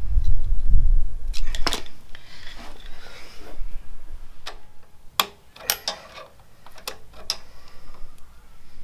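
A dozen or so sharp metallic clicks and clinks at irregular intervals, from tools and aluminium foot-peg parts being handled, after a low rumble in the first second.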